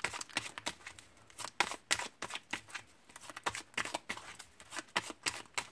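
A deck of hand-painted, laminated oracle cards being shuffled by hand: a steady run of quick, irregular card slaps and riffling rustles.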